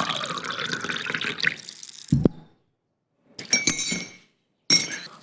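A dark drink poured from a glass jug into a glass mug, the pitch of the stream rising as the mug fills over about two seconds. A low knock follows, then a couple of short glassy clinks.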